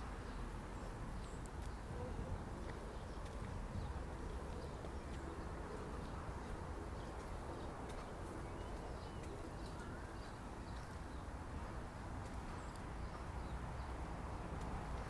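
Park ambience: a steady low background rumble with small birds chirping now and then.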